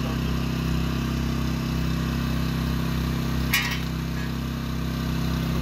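A steady low machine hum with an even drone. A short, sharp scrape or clatter comes about three and a half seconds in.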